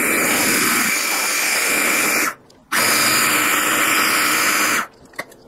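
KitchenAid 3.5-cup electric food chopper running, chopping a dry mix of panko crumbs, dried mango and macadamia nuts. It is pulsed: the motor stops a little over two seconds in, starts again a moment later, and cuts off near the end.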